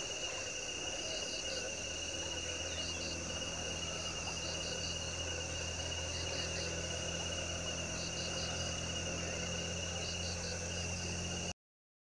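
Steady, high-pitched drone of an insect chorus, with short chirps in groups of three or four repeating about every second. It cuts off abruptly near the end.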